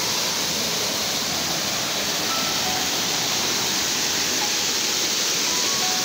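Stream water rushing over and between boulders in a small rocky cascade: a steady hiss of white water.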